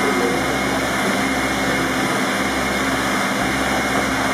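Steady drone of a running ground support unit powering a jacked-up MiG-29 for a landing-gear swing test, holding one even pitch.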